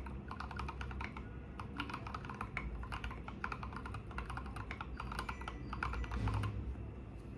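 Fast typing on an IDOBAO ID80 mechanical keyboard with lubed Durock Koala tactile switches and SA keycaps: a dense run of thocky keystrokes that stops about six and a half seconds in.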